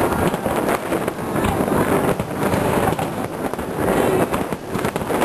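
Fireworks display: aerial shells bursting in a rapid, continuous string of booms and crackles.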